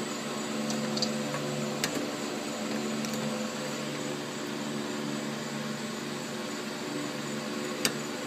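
A ratchet on a swivel extension working the last 10 mm intake manifold bolt, giving a few light metallic clicks over a steady mechanical hum.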